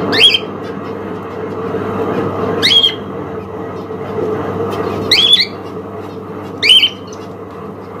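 Cockatiel giving four short, shrill rising calls a couple of seconds apart, over a steady background hum.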